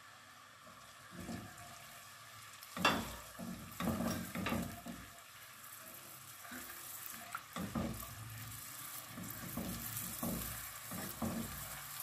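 Chopped onions starting to fry in hot oil in an aluminium pot: a sizzle that builds from about a second in. Over it come the knocks and scrapes of a silicone spatula stirring against the pot, the loudest about three seconds in.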